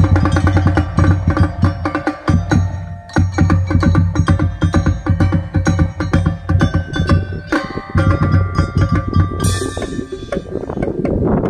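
Non-brass marching drum band playing: rapid marching-drum strokes with a pitched bell-like melody over them. A swelling rush of noise builds near the end.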